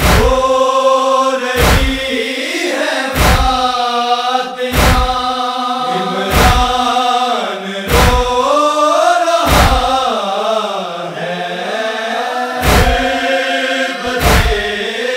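Male voices of a noha party chanting a noha lament in unison, long held, wavering lines. A deep thump keeps time about every second and a half, with one longer gap past the middle.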